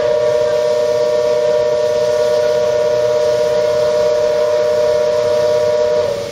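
Station platform departure siren sounding: a loud, steady two-tone electronic tone held for about six seconds, then cutting off. It is the signal that the train is about to depart.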